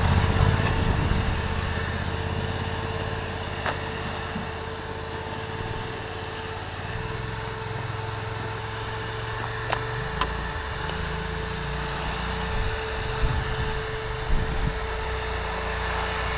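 Off-road buggy's Suzuki GSX RF600 four-cylinder motorcycle engine idling, its low note shifting a little, with a few light clicks.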